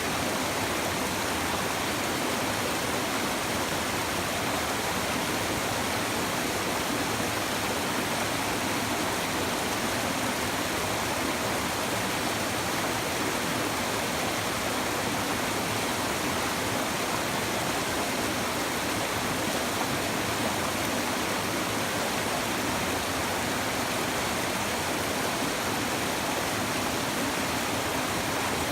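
A shallow river babbling and rushing over stones in a steady, unbroken flow.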